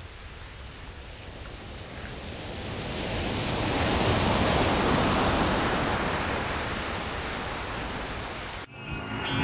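A rushing noise with no pitch to it, swelling to its loudest about halfway through and then fading. It cuts off suddenly near the end, and music starts.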